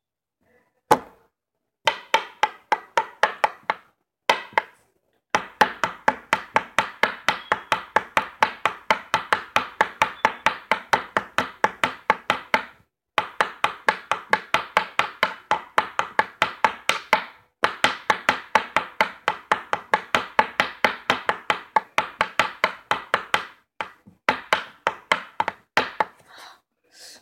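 Pencil point stabbed rapidly onto a tabletop between spread fingers in the knife game: fast runs of sharp taps, broken by short pauses.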